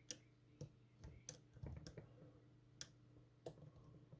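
Faint, irregular clicks, about half a dozen, of a lock pick and tension wrench working the pin stack inside a Master Lock M930 padlock during single-pin picking.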